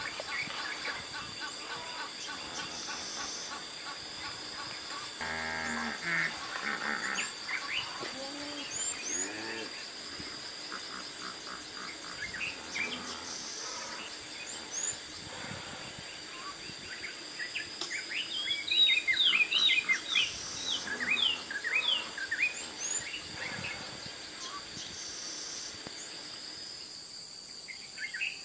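Bush ambience: many birds calling in short, quick chirps, busiest and loudest from about 18 to 23 seconds in, over a steady high insect hum.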